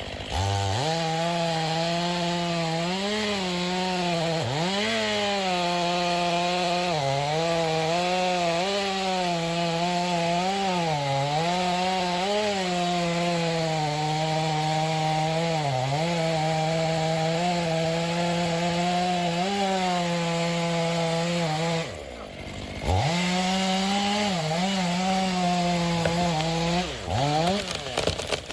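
Chainsaw running at high revs and cutting into a tree trunk, its engine pitch repeatedly sagging and recovering as the chain bites into the wood. About 22 seconds in the sound drops away for a second, then the saw comes back at full revs with a few quick throttle blips near the end.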